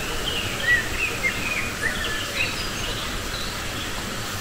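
Forest birds calling: a scatter of short chirps and brief whistled notes, several overlapping, over a steady background hiss.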